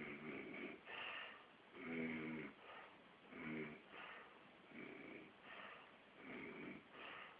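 Snoring during sleep: about five slow breath cycles, each a low snore followed by a higher, hissing breath. The loudest snore, about two seconds in, has a pitched rattle.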